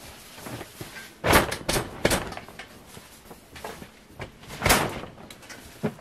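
A handful of sharp knocks and thumps as the fabric cover and steel-pipe frame of a carport are handled, with a cluster just over a second in and the loudest knock about two-thirds of the way through.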